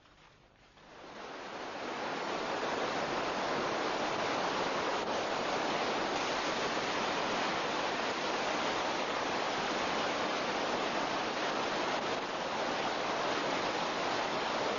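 Rushing water: a dense, steady noise that swells in over the first second or two and then holds level.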